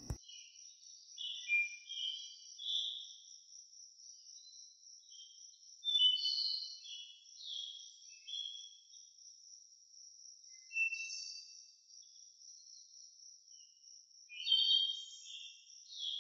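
Outdoor ambience: a steady high-pitched insect drone with birds singing short phrases of chirping notes over it. The birds come in clusters about a second in, around six seconds, around eleven seconds and near the end.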